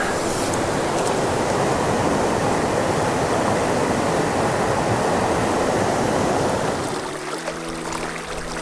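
Spring creek water rushing steadily, an even splashy hiss. About seven seconds in it drops back and soft instrumental music with held notes comes in.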